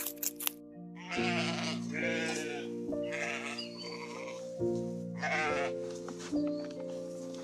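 Sheep bleating several times, wavering calls starting about a second in, over background music with steady held notes.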